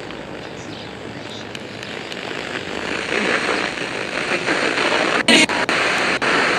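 Radio static: a steady hiss between stations that grows slowly louder, with a brief snatch of sound breaking through about five seconds in.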